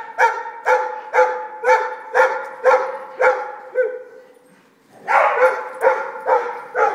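A dog barking over and over, about two barks a second, pausing briefly a little past the middle and then starting again.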